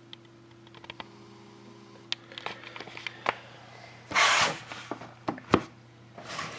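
A box of trading cards being handled on a table: scattered clicks and taps, a sharp knock, and two short scraping rustles, the louder about four seconds in. A steady low hum runs underneath.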